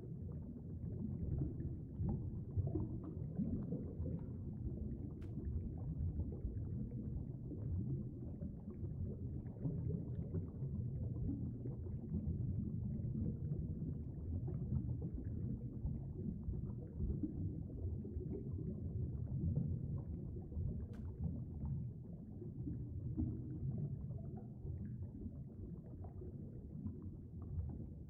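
Low, muffled rumble of flowing stream water heard through a camera held underwater, with two faint clicks.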